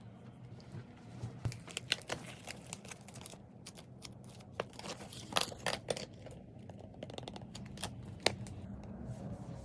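Packaging being handled and opened: crinkling and rustling with scattered small clicks and taps.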